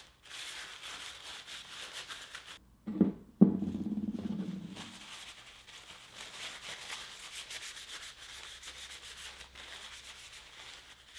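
Paper towel rubbing in quick strokes over a small metal lathe handle. About three seconds in the rubbing stops for two loud knocks of a metal handle set down on the plywood bench, then the wiping resumes, softer.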